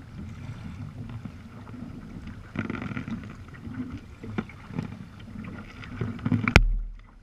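Sea kayak being paddled: water splashing and lapping against the hull, with occasional knocks. A sharp, loud knock near the end is followed by a brief muffled drop in the sound.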